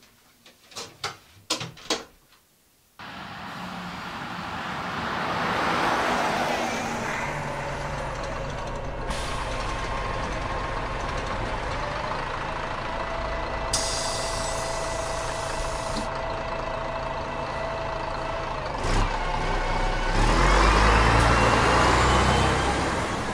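Road traffic on a village road: after a few brief faint sounds, a steady low rumble comes up about three seconds in, with one vehicle swelling past about six seconds in and a louder one passing near the end.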